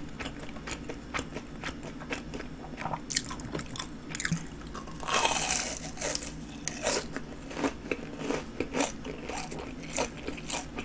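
Chewing of crispy breaded fried jumbo shrimp: a steady run of small crunches, with a louder, denser crunchy bite about five seconds in.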